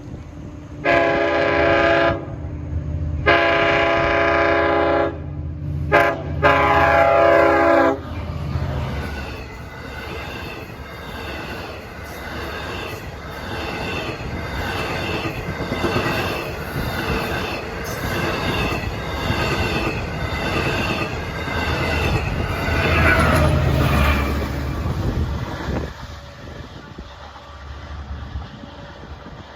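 Long Island Rail Road diesel locomotive's air horn sounding the grade-crossing signal: long, long, short, long. The 12-car train then passes with a steady rhythmic clickety-clack of wheels over the rail joints, and the sound fades near the end.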